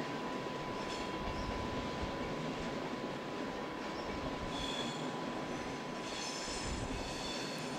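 Passenger train rolling along curving tracks with a steady rumble. High-pitched wheel squeal from the rails comes in about halfway through and again near the end.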